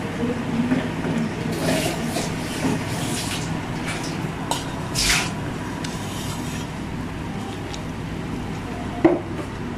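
Stainless steel mug being lifted out of a pan of hot water and set down on a tiled counter: scrapes, dripping and knocks of metal, the loudest about five seconds in, over a steady low hum.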